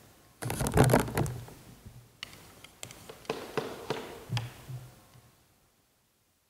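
Handling noises as a long-handled candle snuffer is taken up and lowered over a lit candle. There is a soft knock and rustle about half a second in, then a series of light taps and clicks. The sound fades and cuts out to silence a little after five seconds.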